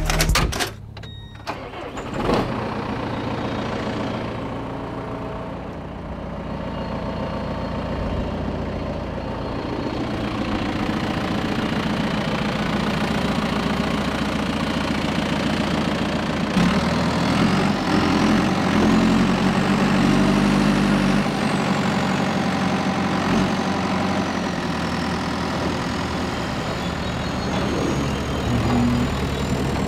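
Farm tractor's diesel engine starting about two seconds in, then running steadily. About halfway it runs harder, and a high whine rises and falls while the front loader lifts a straw bale.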